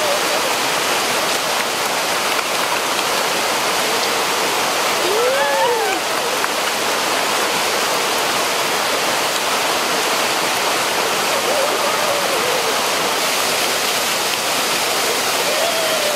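Waterfall and mountain stream rushing steadily over rocks.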